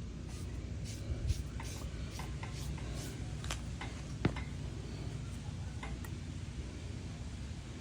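Light scraping and rubbing strokes with small ticks, as of hand work on a small object, and one sharper click about four seconds in, over a steady low hum.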